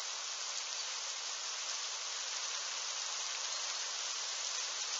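Light rain that has just begun falling, a steady, even high hiss with no thunder.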